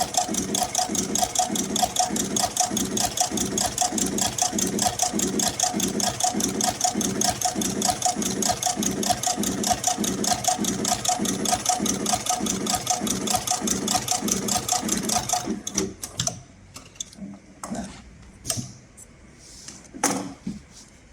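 A heavy-duty HighTex industrial sewing machine stitching leather upholstery at a steady, even rhythm. It stops about three-quarters of the way in, followed by a few light clicks and knocks.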